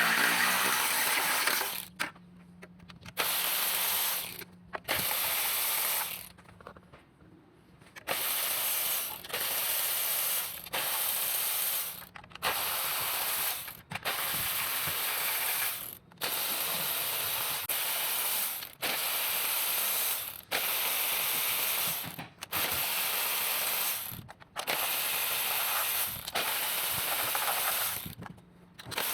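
A ratchet wrench working a fastener in about a dozen strokes of roughly a second each, with short pauses between them. A power tool's motor whines briefly at the very start.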